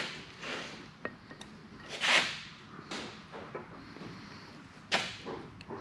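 Hand work on metal parts while a dog point set screw is fitted into the underside of a lathe tailstock base: a string of short clicks, taps and scrapes, with one louder swish about two seconds in and another sharp knock near the end.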